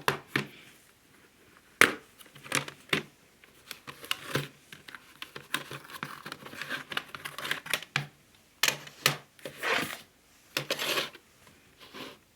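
Packaging being torn open and crumpled by hand: irregular crinkling and ripping with sharp clicks and taps of handling, in bursts with short pauses.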